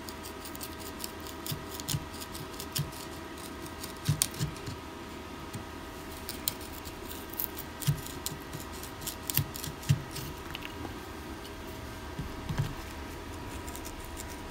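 Small wood chisel cutting and scraping into a carved wooden lure body, irregular short clicks and scrapes as chips come away from a cavity for a weight. A faint steady hum runs underneath.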